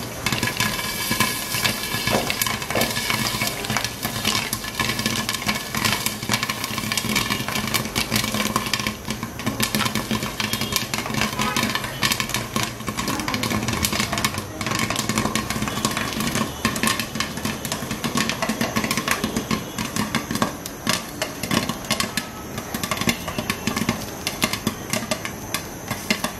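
Popcorn kernels popping in hot oil inside a lidded pot: a fast, dense run of sharp pops over a steady sizzle, at the height of popping.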